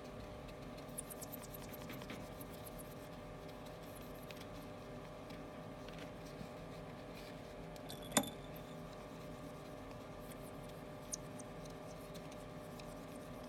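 Faint rubbing and light scratching on an LCD screen's glass as adhesive residue is cleaned off by hand, over a steady low hum. A single sharp click about eight seconds in.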